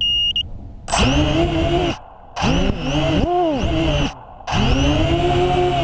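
A short electronic start beep, then FPV racing quadcopters' motors and propellers running in three abrupt stretches of one to two seconds, their pitch rising and falling with the throttle.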